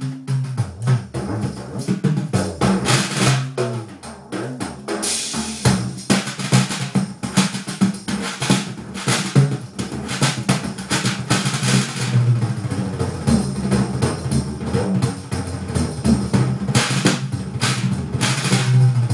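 Tambourine played like a drum in live music: fast rolls and hits, with deep thumps from the drum head under the jingles.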